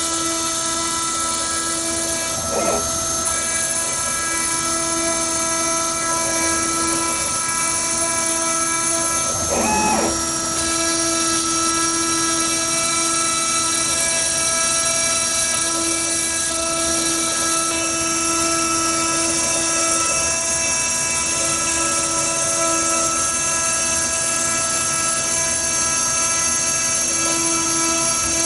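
DIY gantry CNC router milling a PCB: the spindle motor runs steadily with a whine of several steady tones. The tone briefly shifts twice, about three and ten seconds in.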